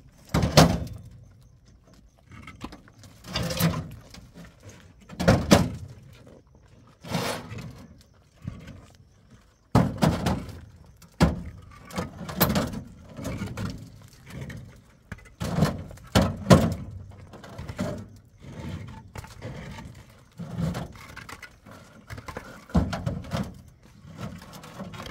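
Irregular series of heavy thunks and knocks, one every second or two, some in quick pairs.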